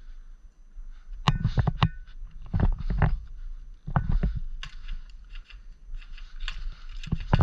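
Airsoft guns firing in short strings of sharp cracks, mixed with low thuds of movement and gear. The shots come in clusters about a second apart, with a busier stretch near the end.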